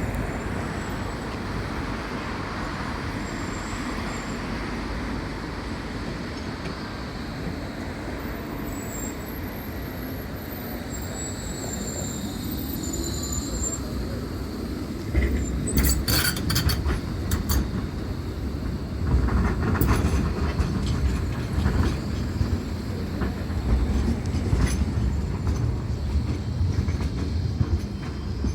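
A tram running on the rails with a steady rumble that grows louder about halfway through as it comes close. Sharp clicks and knocks come from its wheels on the track.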